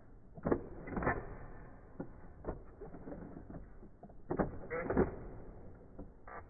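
Clicks and clatter from plastic toy battle platforms: buttons pressed and figures on turning bases swinging round and knocking together, in two bursts, one about a second in and one about four and a half seconds in, with a few single clicks between.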